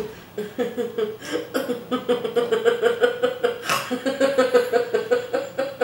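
A woman laughing in quick, rhythmic pulses at a steady pitch.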